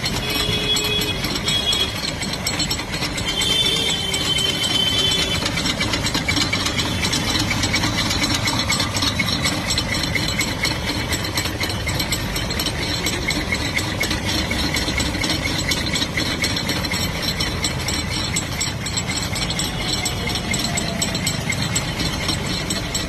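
Car wheel making a fast, continuous ratcheting clicking noise, the sign of a wheel fault.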